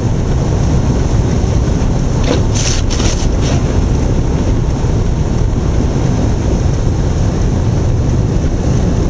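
Blizzard wind buffeting the microphone: a steady, loud low rumble, with a brief rustle about two to three and a half seconds in.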